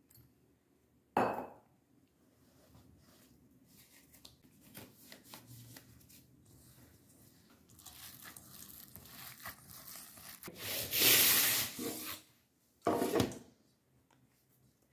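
A gloved hand mixing a crumbly mixture of ground hazelnuts and rusk in a stainless-steel bowl: soft rubbing and crunching that grows loudest about ten to twelve seconds in. A sharp knock about a second in as a metal pot is set down on the wooden counter, and a short clatter of kitchenware near the end.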